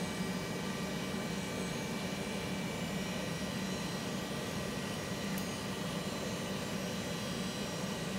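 Steady mechanical drone of a motor or fan running, an even whirring hum with several fixed tones in it. A faint tick comes about five seconds in.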